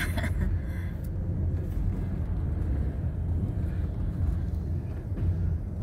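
Car engine and road rumble heard from inside the cabin while driving, a steady low drone.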